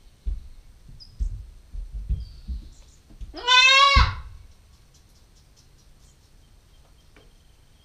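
A Nubian goat kid gives one loud, wavering bleat lasting under a second, about three and a half seconds in. A few dull knocks come before it.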